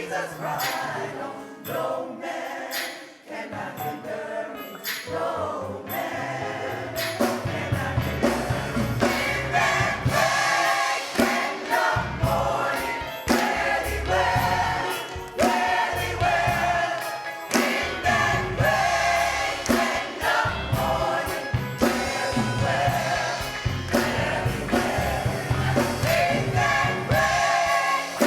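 Gospel choir singing with a band. The accompaniment is light at first, then bass and a steady beat come in about six or seven seconds in.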